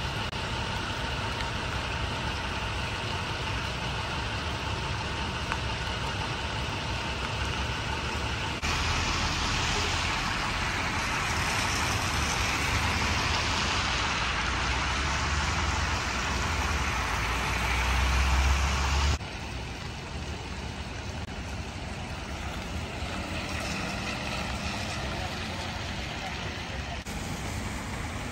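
Vehicle engines and road traffic under a steady hiss, the mix changing abruptly a few times. A low rumble builds to its loudest about two-thirds of the way through, then drops away suddenly.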